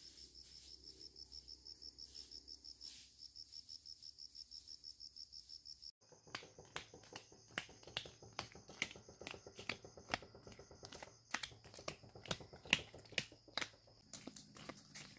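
Insects trilling steadily in a fast, even pulse. About six seconds in, after an abrupt cut, a run of irregular sharp clicks and taps starts over the continuing insect trill; the clicks are the loudest sounds.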